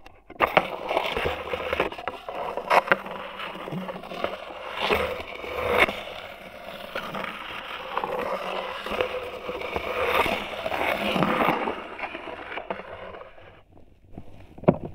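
A dry twig scraped and dragged across wooden floorboards, heard through the boards by a piezo contact microphone: continuous scraping dotted with small clicks and snaps. The scraping dies away about three-quarters through, and a single sharp knock comes near the end.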